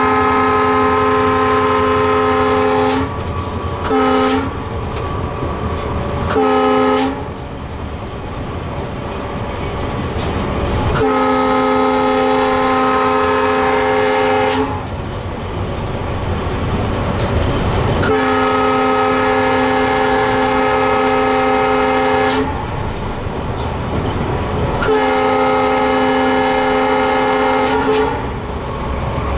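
Locomotive air horn sounding a chord of several notes in six blasts: a long one ending about three seconds in, two short toots, then three long blasts. Beneath it is the steady running noise of the EMD GT46MAC (WDG4D) diesel locomotive and its wheels on the track, heard from inside the cab.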